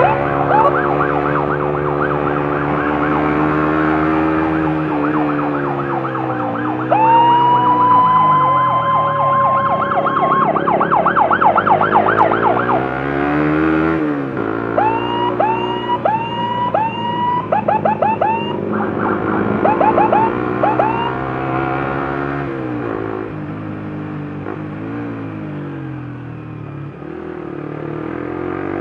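Emergency sirens sounding: a fast yelp, one long rising wail about seven seconds in, then a run of short rising chirps around the middle. Underneath, a motorcycle engine rises and falls with the throttle.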